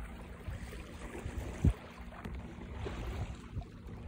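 Wind buffeting the microphone on a sailboat under sail: a steady low rumble broken by irregular low thumps, the loudest at the very start and just under two seconds in.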